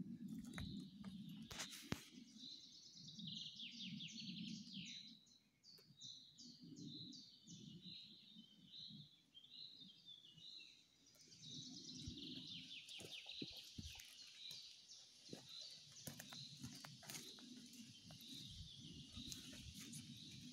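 Songbirds singing faintly: one repeats a short high note about twice a second while others give rapid trills. Low rustling and soft thumps come and go underneath.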